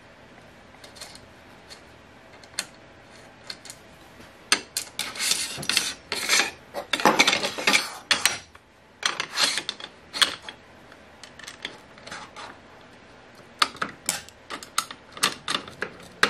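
Metal miter gauge fence parts being handled on a table saw's steel top: scattered clicks and knocks, with scraping slides and clattering strongest from about a third of the way in to around two thirds, then more clicks near the end.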